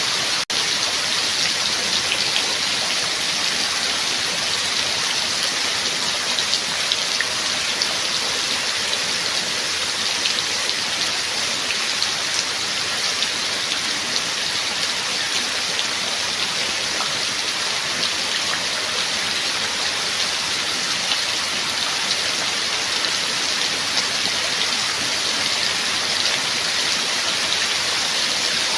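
Steady rain falling, a dense patter of drops with scattered sharper drop hits, broken by a split-second gap about half a second in.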